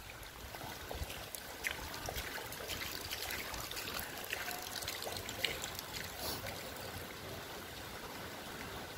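Rain falling on shallow floodwater covering a street: a steady hiss of drops on the water with a few louder single splashes now and then.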